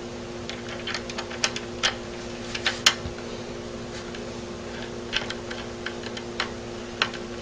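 Irregular small metallic clicks and taps as the long rear tang screw is fitted and started into a Mosin-Nagant rifle's trigger guard, over a steady low hum.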